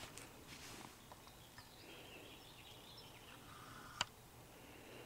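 Near silence: faint rustling as a plastic Blu-ray case is handled, with one sharp click about four seconds in.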